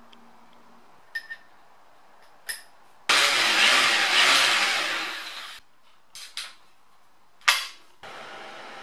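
Electric drill fitted with a high-speed-steel countersink bit cutting a countersink into aluminium channel, running for about two and a half seconds, then winding down. A few light clicks come before it and a sharp click near the end, followed by a steady hiss.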